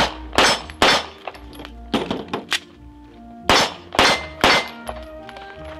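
Walther PPQ M2 pistol firing three rapid shots about 0.4 s apart, then a pause of about two and a half seconds for a magazine reload, then three more rapid shots.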